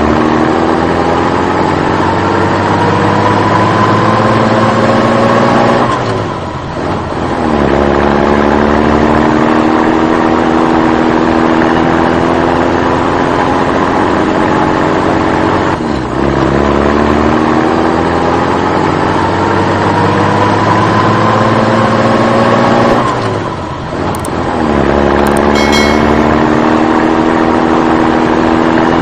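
Vehicle engine running and revving: its pitch climbs steadily for about six seconds, drops back briefly, then holds lower, and the same cycle repeats twice, like a looped engine sound.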